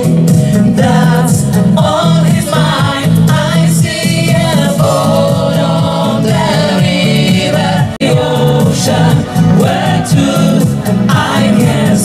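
Live disco-pop music: several women singing together into microphones over a band with a steady, pulsing bass line.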